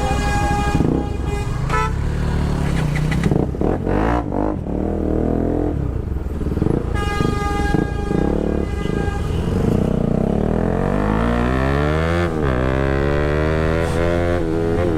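Bajaj Pulsar RS200's single-cylinder engine through an Akrapovic full titanium exhaust system, revving up and down under way, then pulling hard with its pitch climbing twice and dropping back at each gear change over the last few seconds. A vehicle horn honks twice, each time for about two seconds: once at the start and once about seven seconds in.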